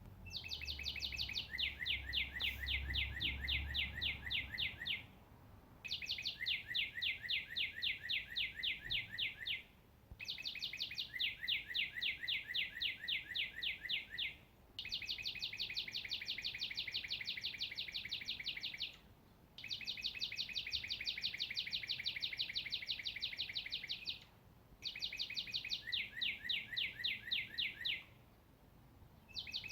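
A songbird singing a long, rapid, even trill of repeated high chirps, each trill lasting about four seconds, repeated six times with short pauses between.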